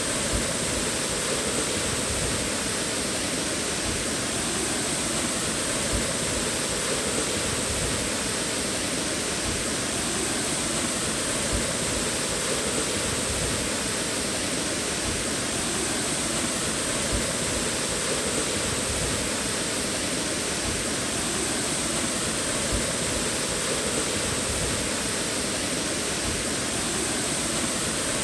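Waterfall: water rushing in a steady, unbroken roar of noise.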